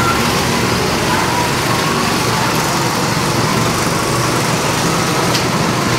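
Petrol go-kart engines running steadily, a continuous small-engine drone with faint whining pitches that rise and fall as the karts move.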